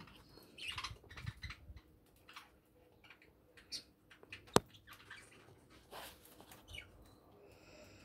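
Budgie eating seed from a metal bowl: small scattered clicks and pecks, with brief high budgie chirps now and then and one sharp click about four and a half seconds in.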